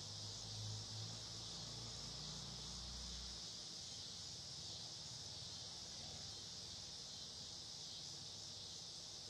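Steady, high-pitched drone of insects in the background, with a low rumble through the first three seconds or so. The doves make no sound.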